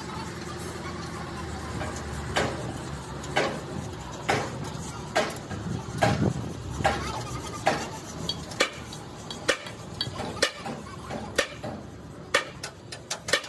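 Sharp metallic knocks, as of metal being struck, about once a second, coming quicker near the end.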